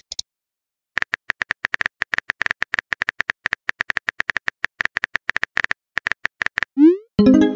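Simulated phone-keyboard typing clicks from a texting-story app, quick taps starting about a second in and running for several seconds as a reply is typed out. Near the end a short rising swoosh and a bright fading chime mark the message being sent.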